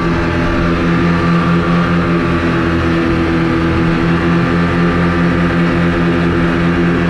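Twin 40 hp outboard motors running steadily at speed under a boat, an even engine drone that holds one pitch throughout, over a rushing hiss of wind and water.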